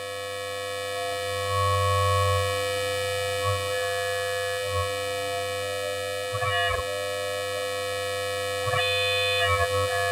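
Electronic drone from a custom Pure Data modular synth patch: many steady held tones stacked over a low hum, fading in at the start. Twice in the second half, pitch sweeps glide up and back down over the drone.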